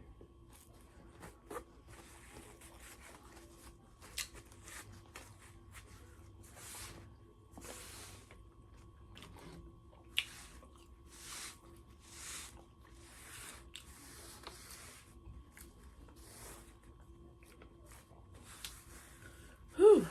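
Close-up chewing of crispy fried chicken: soft wet crunches and mouth noises about once a second, with a few sharp clicks, ending in a loud exhaled "whew".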